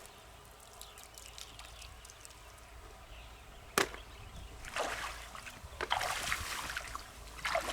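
Water splashing and sloshing in short bursts through the second half, after a single sharp knock a little under four seconds in.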